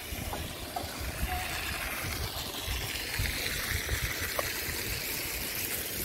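Steady running water, with gusts of wind rumbling on the microphone.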